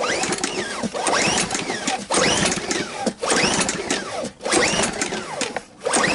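Recoil pull-starter of a Ryobi RYI2200 inverter generator yanked about five times, roughly one pull a second. Each pull spins the engine over with a whirr that rises and falls, and the engine does not catch: a hard-starting engine after months of storage.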